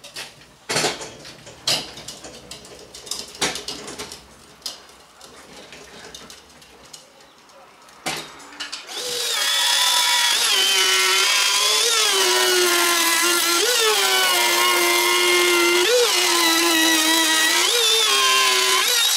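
Scattered knocks and clatter for the first several seconds. About nine seconds in, a handheld router starts with a loud, steady high whine, cutting a fan opening through the trailer's fiberglass-skinned plywood roof. Its pitch rises briefly every second or two as the load on the bit changes.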